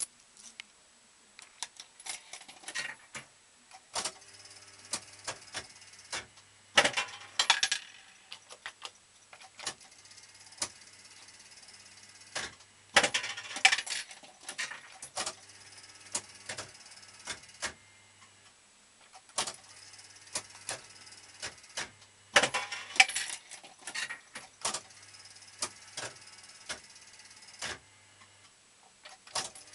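Super Nudge Gambler 2 fruit machine in play: a run of mechanical clicks and rattles from its reels and coin mechanism, with three louder bursts of clatter about 7, 13 and 22 seconds in.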